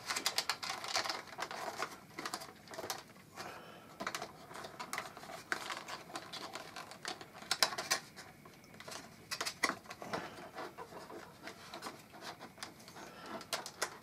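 Clear plastic packaging crinkling and clicking as a model train coach is worked out of its moulded tray and plastic sleeve by hand; irregular sharp crackles and clicks.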